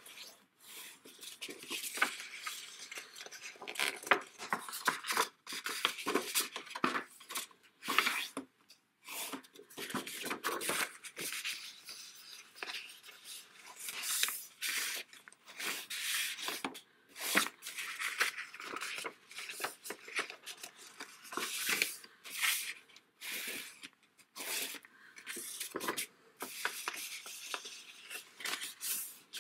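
A bone folder drawn firmly along the folds of a sheet of designer paper, creasing its score lines: repeated short scraping strokes, with the paper rustling as it is handled and turned between them.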